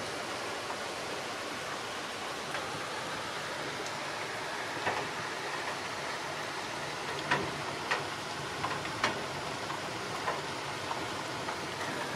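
Heavy downpour: a steady hiss of rain, with scattered sharp taps, most of them between about five and nine seconds in.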